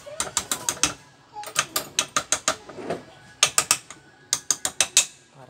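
Ratcheting screwdriver clicking in quick runs of several clicks, about four runs, as screws on the wall fan's motor bracket are loosened.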